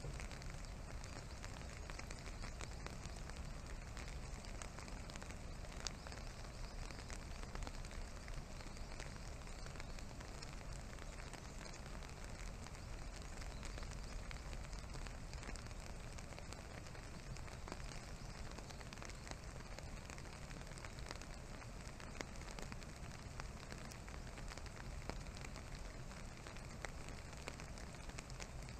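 Faint steady background hiss with scattered soft ticks.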